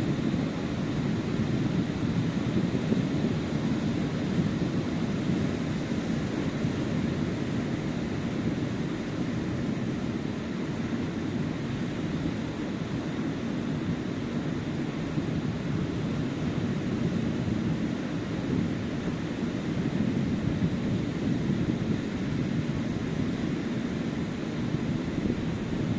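Ocean surf breaking on the beach: a steady low rushing that swells and eases gently as the waves come in.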